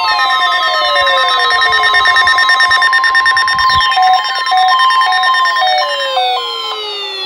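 NOAA Weather Radio warning alarm tone (the 1050 Hz test tone), a steady high tone from a weather radio receiver. Falling gliding tones are laid over it, and a pulsing beep joins about four seconds in. The steady tone stops about six seconds in.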